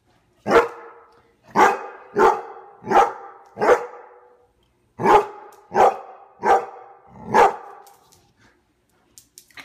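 A dog barking in play: nine sharp barks at roughly one every two-thirds of a second, with a short pause about four seconds in.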